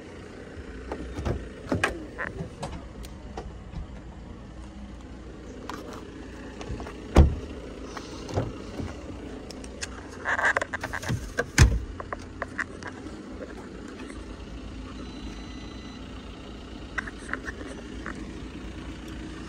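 Driver's door of a parked Audi A4 estate being unlatched and swung open: a short rattle and sharp knocks, with scattered handling clicks over a steady low hum.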